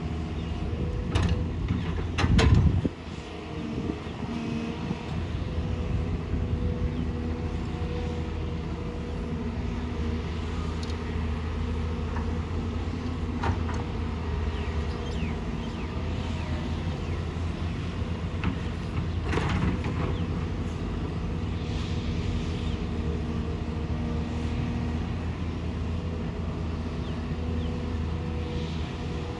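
Excavator's diesel engine running steadily under work, with a few sharp knocks, the loudest about two seconds in and another about two-thirds of the way through.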